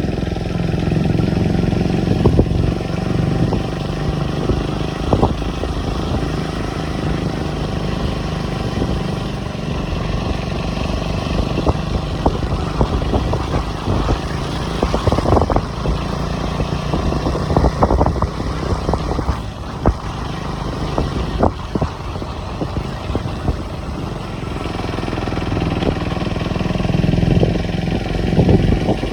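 KTM 250 Duke's single-cylinder engine running through its stock exhaust, a steady low note with scattered short ticks, swelling in level near the end.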